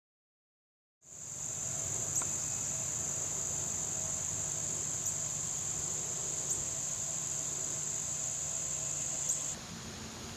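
Steady high-pitched chorus of insects, such as crickets or katydids, with a faint low hum beneath. It starts about a second in and drops in level shortly before the end.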